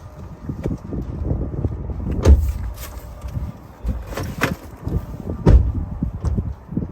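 Irregular knocking and clattering of items being handled and set down, with two heavy thumps, about two and five and a half seconds in.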